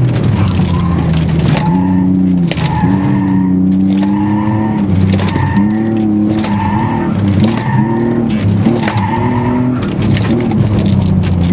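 Mercedes-Benz CLK 320's 3.2-litre V6 heard from inside the cabin, revving up and dropping back again and again, about once a second, as the car is driven hard through a slalom, with tyres squealing in the turns.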